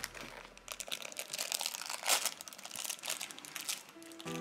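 Plastic wrapper crinkling and tearing as it is pulled open by hand, in quick irregular crackles; music fades out at the start and comes back in near the end.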